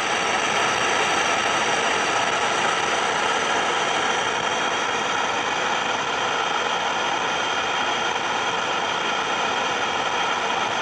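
Loudspeaker under laboratory test reproducing a steady rushing noise test signal, even in level throughout.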